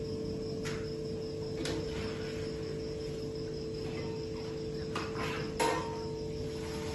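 A few light clinks of metal tongs and a spatula against a metal pan and strainer, scattered through, over a steady hum and a faint, high, continuous trill.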